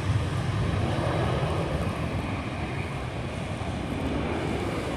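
A Bombardier Global 5000 business jet's turbofan engines at takeoff power, heard from far across the airfield as a steady, even rumble.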